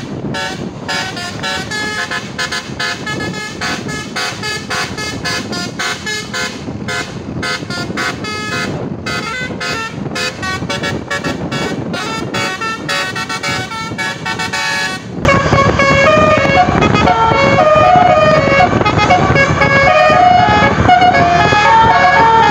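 Bus 'telolet basuri' multi-tone musical horn playing a tune of short stepped notes. About 15 seconds in, it cuts suddenly to another, louder horn playing a slower melody of held notes.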